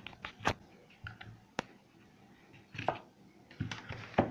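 Irregular sharp clicks and taps from a plastic digital LED alarm clock being handled, its side buttons pressed, about five or six in all.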